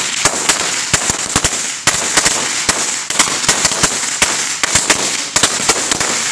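A 16,000-count firecracker roll going off in a continuous, irregular string of sharp bangs, several a second, over a constant crackle.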